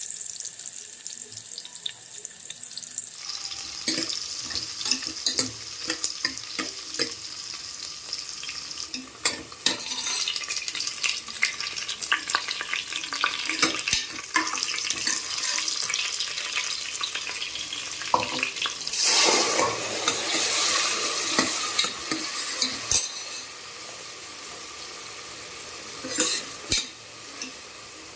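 Food sizzling in a hot pan while being stirred, with many sharp clicks of a spoon against the pan over a steady hiss. The hiss swells louder for a few seconds about two-thirds of the way through.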